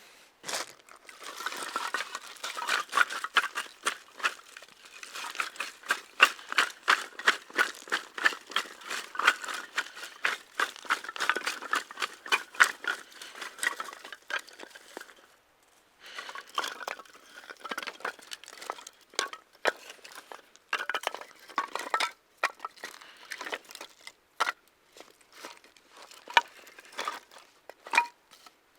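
Rapid crackling and crinkling from a fire being started in a fire pit with damp firewood. The crackling is dense for about the first half, breaks off briefly, then continues as sparser snaps.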